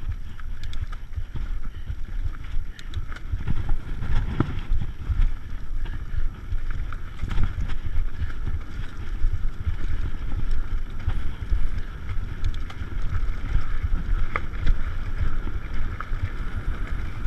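Mountain bike descending a rough dirt singletrack: a steady rumble of wind buffeting the microphone and tyres on the dirt, with frequent short clicks and rattles as the bike jolts over the ground.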